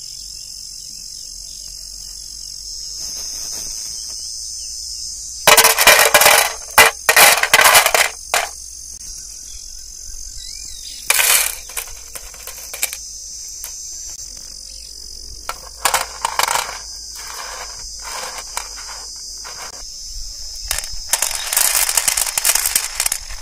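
Dry, uncooked fryums and appalam pieces rattling onto an aluminium plate and plastic bags rustling, in several loud bursts, the loudest about six to eight seconds in. Crickets chirp steadily underneath.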